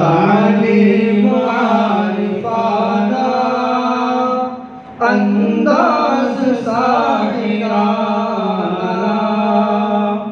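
Unaccompanied devotional singing, a naat: a voice sings two long, wavering phrases with a short break about halfway through.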